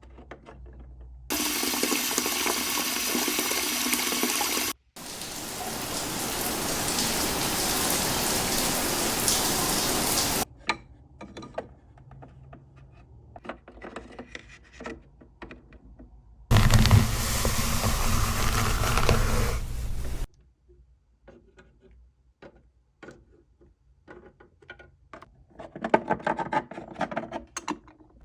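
Sound effects of rushing water, like a running tap and a toilet flush, in three abrupt blocks of a few seconds each, the last with a deep rumble. Between them come small clicks and knocks, like toy figures being handled.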